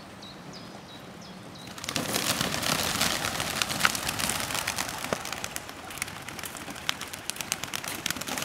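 A flock of homing pigeons taking off from a release crate about two seconds in: a sudden dense clatter of many wing beats and sharp wing claps that thins out as the birds fly away.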